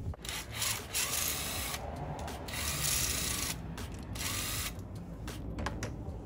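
Cordless drill-driver spinning in about four short bursts as it backs out the top bolts of a fuel-injector installation tool.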